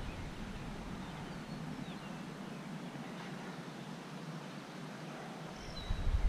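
Quiet outdoor ambience: a steady low hiss with a few faint, short bird chirps. A louder rustling noise starts near the end.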